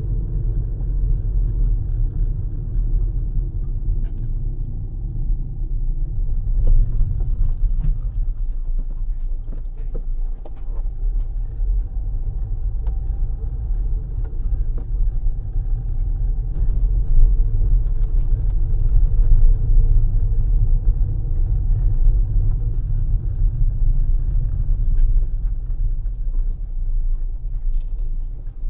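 A car driving, heard from inside the cabin: a steady low rumble of engine and tyres that swells a little in the second half, with a few light ticks and knocks over it.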